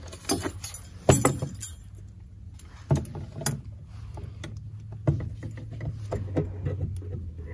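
Steel body-grip (Conibear-style) trap, its chain and a wire guide stake clinking and rattling as they are handled, with sharper clanks about a second in and near three seconds.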